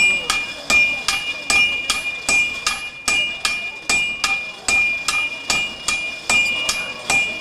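Blacksmith's hammers striking red-hot iron on an anvil in a steady rhythm of ringing metallic blows, about two and a half a second, with two hammers taking turns.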